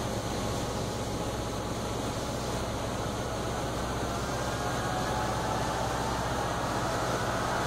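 Cessna 150's four-cylinder Continental O-200 engine and propeller running steadily in flight, a low drone under rushing air noise. A faint higher whine rises slightly in pitch and grows a little louder near the end.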